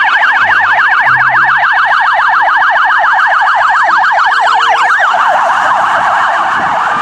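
Police car siren in a rapid yelp, sweeping up and down several times a second. A little past five seconds in, it switches to a faster, rougher warble.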